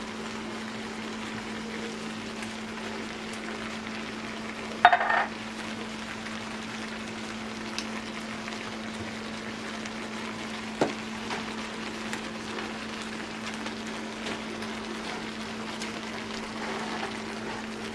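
Shell-on shrimp sizzling in butter in a skillet while being stirred with a wooden spatula, over a steady low hum. A brief loud clatter comes about five seconds in and a sharp knock near eleven seconds.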